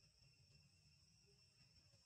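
Near silence, with a faint, steady, high-pitched insect chorus running throughout and a low background rumble.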